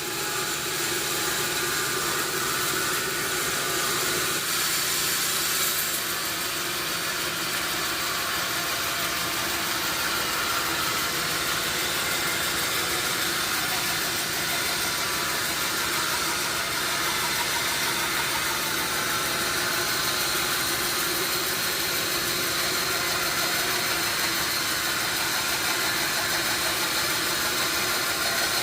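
Sawmill machinery running steadily: a continuous even noise with a low mechanical hum beneath it, unbroken throughout.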